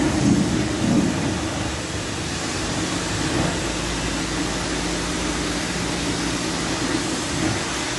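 Steady rushing noise of running water and equipment in a car wash bay, with a faint low hum underneath.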